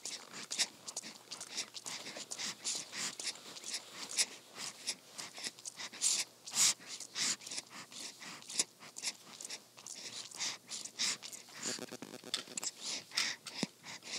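Newborn baby sucking on a pacifier in her sleep, close up: a quick, uneven run of soft wet mouth clicks.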